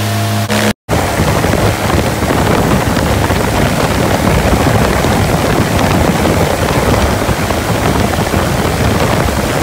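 Viking 130 aircraft engine running with its propeller turning: a steady, pitched hum for under a second, then, after a brief cut, loud rushing propeller-wash wind buffeting the microphone and largely drowning the engine.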